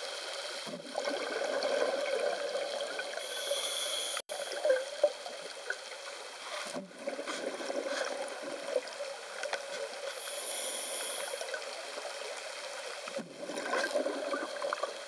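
Scuba diver's breathing heard underwater: steady bubbling and gurgling from the regulator's exhaust, with two hissy bursts about seven seconds apart.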